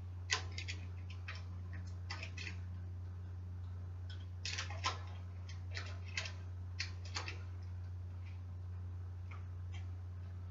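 Scattered light clicks and taps of bicycle parts and tools being handled, a few at a time with pauses, over a steady low hum.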